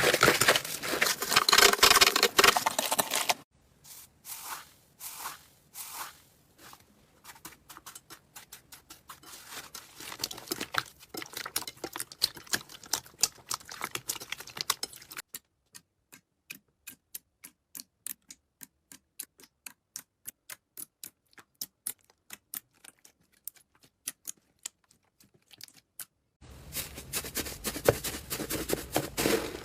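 Slime being squeezed and worked by hand: dense crunchy crackling at first, then a long run of sharp sticky clicks and pops that settles into an even rhythm of about three a second, before the crunchy crackling returns near the end.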